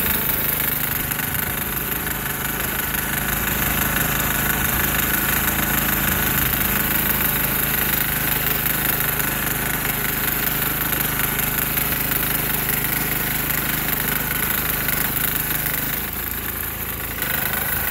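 Sears Suburban garden tractor's 6 hp single-cylinder diesel running steadily as the tractor pushes fresh snow with its front plow blade, with the typical knocking clatter of a small diesel. It goes briefly quieter about 16 seconds in, then picks back up.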